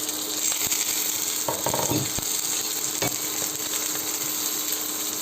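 Small pancakes (oladyi) frying in oil in a pan: a steady sizzle that spits and crackles because water has dripped from the lid into the hot oil. A few short knocks come about one and a half to two seconds in and again about three seconds in.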